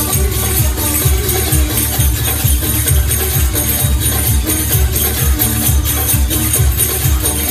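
Recorded world-fusion dance music with a steady drum beat and jingling percussion.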